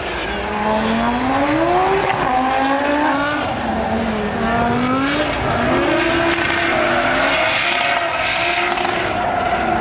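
Cars' engines revving hard on a race circuit, their pitch repeatedly climbing and dropping with throttle and gear changes as the cars are driven sideways in drifts.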